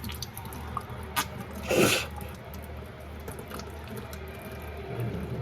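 Tap water running and splattering in a sink as hair is rinsed, with a short, louder gush of water just before two seconds in.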